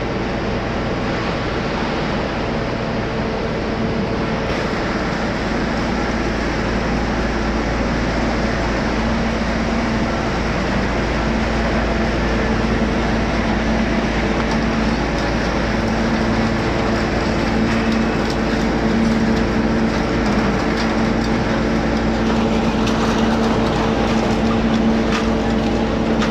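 Steady din of washing-machine recycling-line machinery running, with a constant low hum that grows stronger about halfway through. Scattered sharp knocks and clatter come in near the end.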